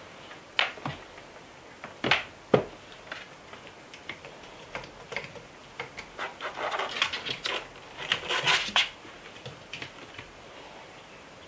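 A cat scuffling and clawing while it plays on a cat tree: a few sharp knocks in the first couple of seconds, then quick rasping bursts of claws on the sisal post and mat, loudest past the middle.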